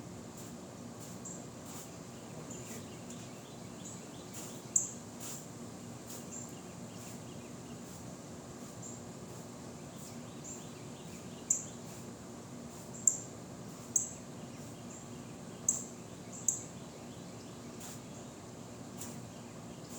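Outdoor background noise with a string of short, sharp high-pitched chirps every few seconds, clustering in the second half.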